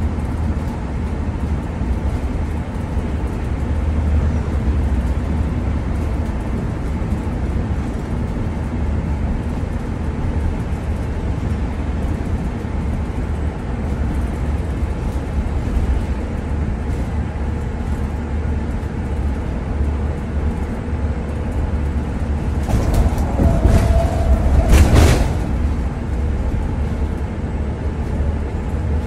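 Steady low drone of engine and tyre noise inside a motorhome's cab, cruising at highway speed on a wet road. About three-quarters of the way through, a brief cluster of knocks and rattles comes in with a short tone, then stops.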